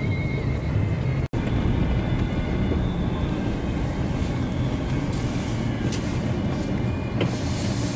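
A vehicle driving slowly along a rough dirt forest trail, heard from inside the cab: a steady low rumble of engine and tyres, with a couple of short knocks from bumps in the second half. The sound cuts out for a split second about a second in.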